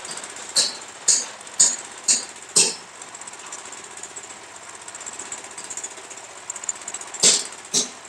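Sharp metal clanks on the steel frame of a lift concrete mixer: five strikes about two a second, then two more near the end.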